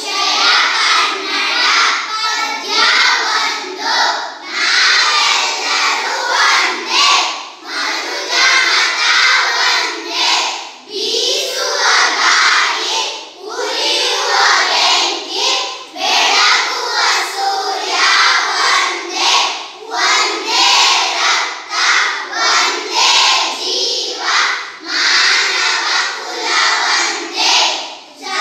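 A class of young children singing together in unison, loud and in short rhythmic phrases.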